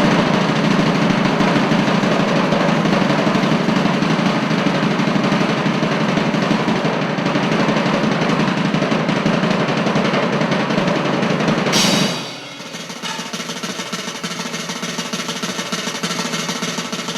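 Loud, continuous drumming, a sustained roll on drums such as a snare, which drops sharply in level about twelve seconds in and goes on more quietly.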